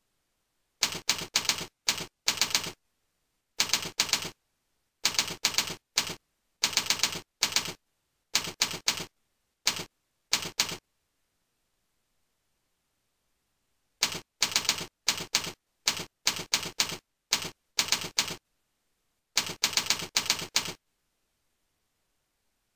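Computer keyboard keystrokes, typing in quick bursts of clicks word by word, with short pauses between the bursts and one longer pause of about three seconds midway.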